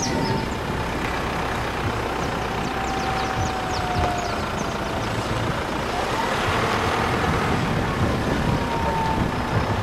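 Steady engine and road noise of a car on the move, heard from inside the car.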